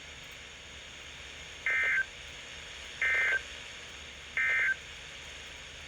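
NOAA Weather Radio's Emergency Alert System end-of-message signal: three short bursts of warbling two-tone digital data, about 1.3 seconds apart, marking the end of the warning. They sound over faint radio hiss.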